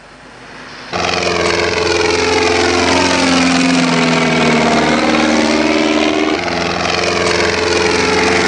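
Vehicle engines running loudly, starting abruptly about a second in. A set of steady engine tones sits under a higher whine whose pitch falls and then rises again around the middle.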